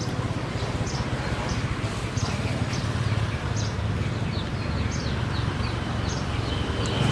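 Repeated short, high chirps, one or two a second, each sliding down in pitch, over a steady low hum.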